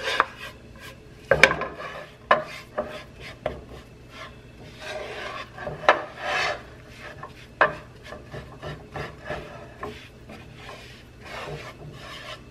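Wooden spoon scraping and stirring a thick paste of chili powder and oil in a nonstick pan: irregular rasping strokes with a few sharp knocks of the spoon against the pan. The powder is being worked into the warm oil until it is fully saturated.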